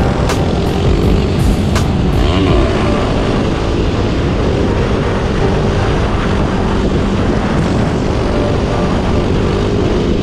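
Supermoto motorcycle riding along with its engine running steadily under heavy wind rush on the microphone.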